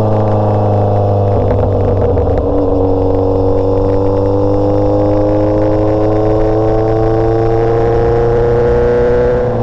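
Motorcycle engine running under way, its pitch climbing slowly and steadily from about three seconds in as the bike gathers speed.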